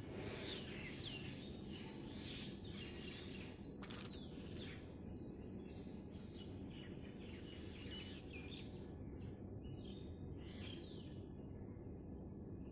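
Several birds chirping and calling in short, overlapping rising and falling notes over a steady low background rumble. A single sharp click about four seconds in.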